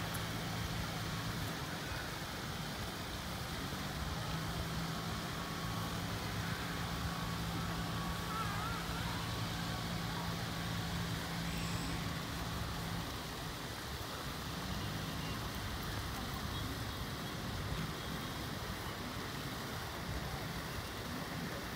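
Steady outdoor background rush with a low motor hum, like a distant engine running. The hum shifts pitch about four seconds in, drops away about thirteen seconds in, and comes back faintly a little later.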